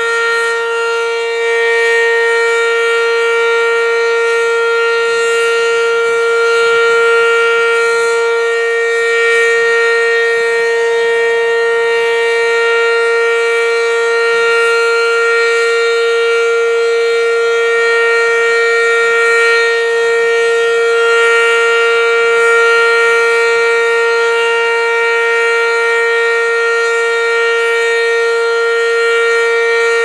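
ACA Banshee 115 single-tone civil defense siren sounding one loud, unbroken tone that holds a steady pitch, with a stack of strong overtones above it.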